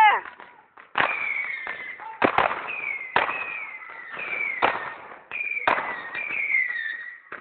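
Whistling fireworks launched one after another: about seven sharp cracks, each followed by a whistle that falls slightly in pitch.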